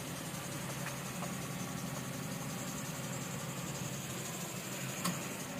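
Steady low mechanical hum under a faint hiss, with a single short click about five seconds in.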